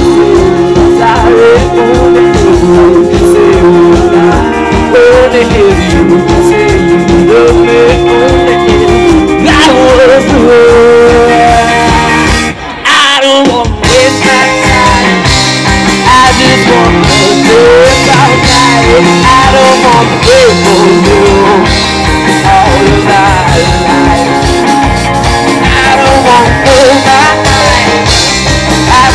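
Live rock band playing loudly and continuously, with a brief drop in the sound about thirteen seconds in.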